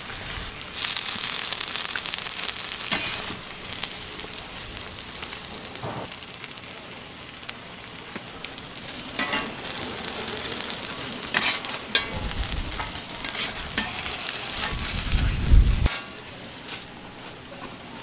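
Egg and garlic toast frying on a flat-top griddle, a steady sizzle with metal spatulas scraping and tapping on the griddle plate. A few dull knocks come near the end.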